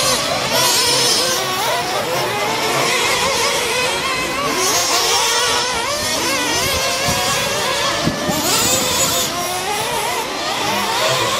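Several radio-controlled off-road racing trucks running together, their motors rising and falling in pitch over one another as they accelerate and brake around the track.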